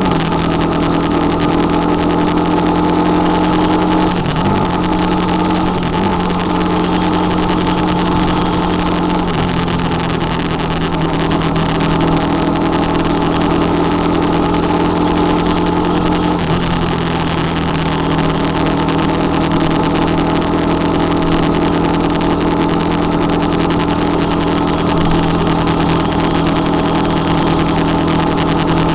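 Motorcycle engine running steadily at cruising speed, its note dipping and shifting pitch a few times as the throttle changes, over a constant rush of wind and road noise.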